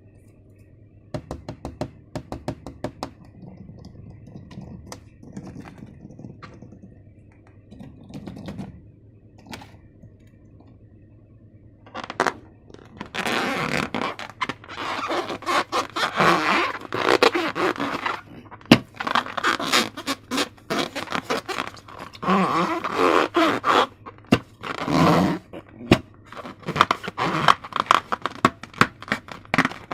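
Slime being worked by hand, sticky and squelching: scattered quiet clicks at first, then from about halfway a dense run of loud crackling squelches.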